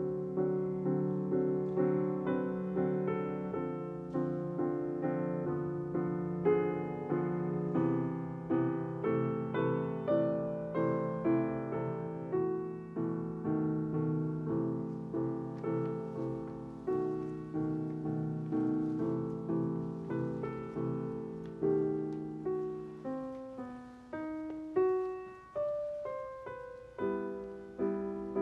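Grand piano played solo: a continuous stream of notes and chords, each struck and left to ring out. Near the end it thins to a few soft single notes for a few seconds, then fuller chords come back.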